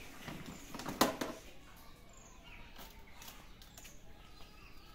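A sharp plastic clack about a second in, with smaller knocks and rattles around it, as kittens climb onto a pink plastic basket and its hinged lid. Faint high chirps of small birds are heard in the background.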